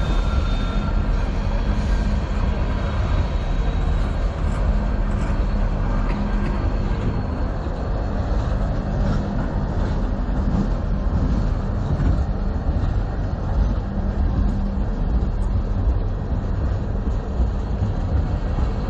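Freight train tank cars rolling past close by, a steady rumble of steel wheels on the rails with faint clicks over the joints.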